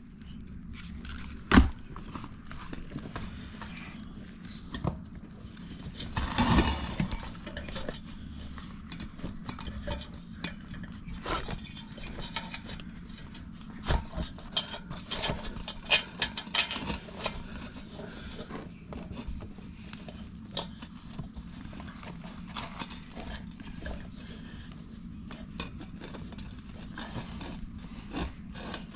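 Scattered clicks, knocks and rubber rustling as a new inner tube is worked into a dirt bike tire and its valve lined up with the rim hole, with a sharp knock about a second and a half in and another about halfway through.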